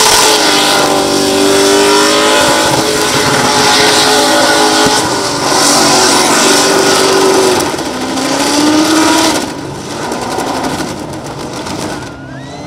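Holden VY SS Commodore V8 revving hard through a burnout, the pitch rising and falling as the rear tyres spin and squeal. The engine eases off about nine and a half seconds in and runs quieter toward the end.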